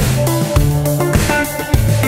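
Background music: guitar and bass over a drum kit keeping a steady beat.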